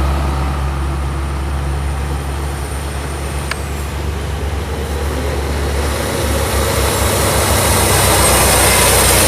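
Heavy logging truck's diesel engine running with a steady low hum, then throbbing and growing louder in the second half.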